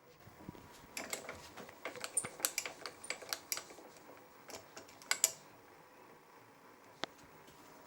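Light metallic clicks and rattles of metal tools and machine fittings being handled at a small milling machine: a quick flurry of clicks about a second in, another short cluster around five seconds, and a single tick near the end.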